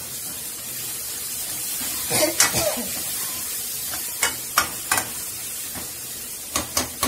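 Chopped onion and tomato sizzling in oil in a metal kadai, stirred with a steel ladle that scrapes and knocks against the pan now and then, three times in quick succession about four seconds in.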